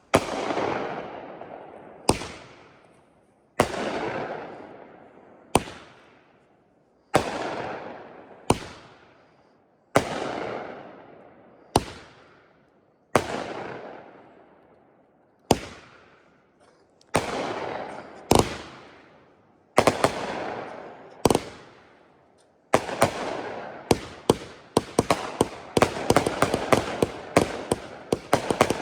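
Aerial firework shots from a World Class "Jake Wants You" firework: each sharp launch thump is followed by a louder aerial break that echoes away, repeating every couple of seconds. From about 23 s it turns into a dense run of rapid crackling pops.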